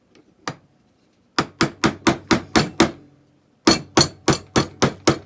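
Hammer tapping on a 1911 pistol part during disassembly: a couple of light taps, then two quick runs of about seven sharp strikes each, roughly four a second, with a short pause between.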